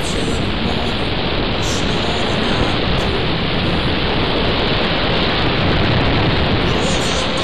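Steady, loud rush of wind over the microphone of a camera riding on a model glider in flight, with music faintly underneath.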